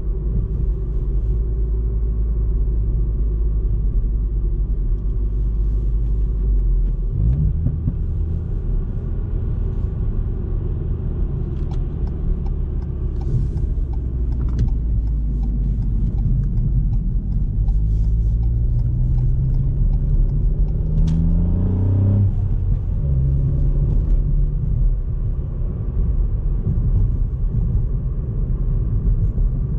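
Ford Fiesta ST's 1.5-litre turbocharged three-cylinder engine running under light load on the road. About seven seconds in the engine note steps up, and from about fourteen seconds it pulls with rising pitch until it drops suddenly around twenty-two seconds, as at a gear change.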